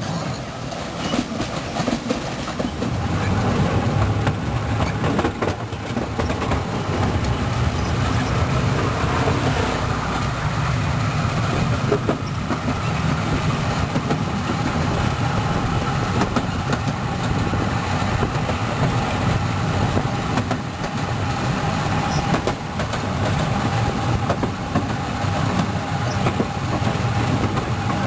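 Wulai's small narrow-gauge tourist trolley train running along its track: a steady rumble of wheels on rail that grows louder about three seconds in, with a thin steady whine above it.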